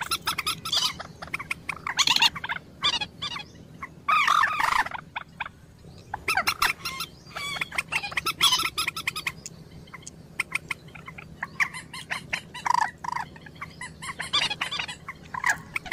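Bird calls, short repeated pitched notes, mixed with many sharp clicks and rustles while a caught bird is handled at a mist net.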